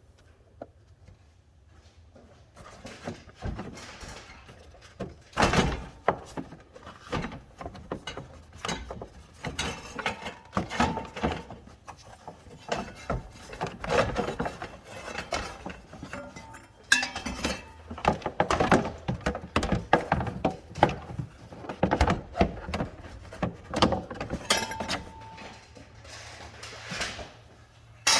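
Radiator fan shroud and engine fan being worked loose from their clips and lifted out of the engine bay together, with irregular knocks, thunks and clatters that start a couple of seconds in and go on for most of the clip.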